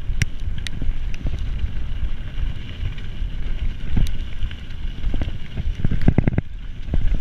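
Mountain bike ridden down a dirt trail as heard from a mounted action camera: wind buffeting the microphone with a steady rumble, and the bike rattling and knocking over rough ground, with a quick cluster of knocks about six seconds in.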